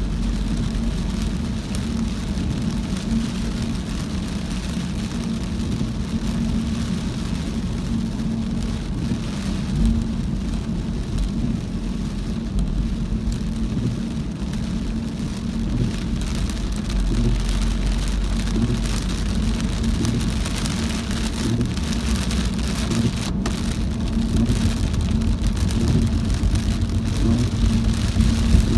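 A car driving in very heavy rain: a steady low road and engine rumble under the hiss of rain. The rain hiss grows louder about two-thirds of the way through.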